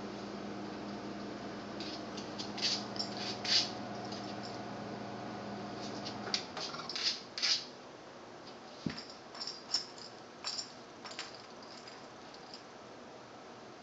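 Dog sniffing in short, sharp bursts, in clusters of two or three, with its nose down at the floor. A steady low hum runs under it and cuts off about six seconds in.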